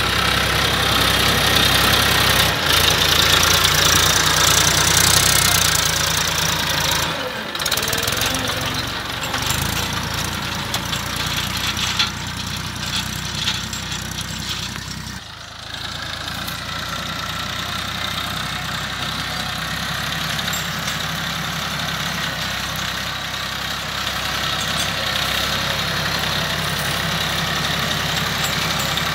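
Massey Ferguson 1035 DI tractor's three-cylinder diesel engine running steadily under load while pulling a cultivator through dry soil. The sound drops out briefly and changes character twice, about a quarter and about halfway through.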